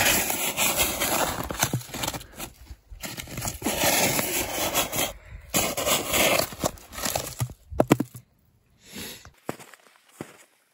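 Coarse, granular snow crunching and crackling as the mouth of a plastic water bottle is pushed and scooped through it to fill the bottle with snow. The crunching stops after about eight seconds, ending in a few sharp clicks.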